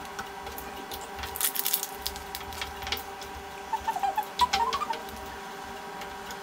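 Fingers rubbing and pressing a dry spice mix into seasoned basa fish fillets on a plate: soft sticky squishes and small clicks, busiest from about a second in until about five seconds, over a faint steady hum.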